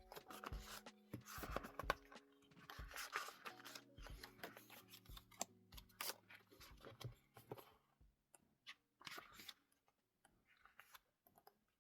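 Soft background music with faint rustling, crinkling and light clicks of paper and cardboard as the contents of a K-pop album are handled; the handling thins out near the end.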